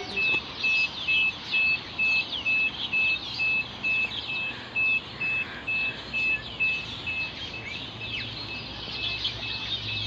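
Gate alarm beeping: a steady high beep repeating about twice a second, growing fainter about seven seconds in, over birds chirping.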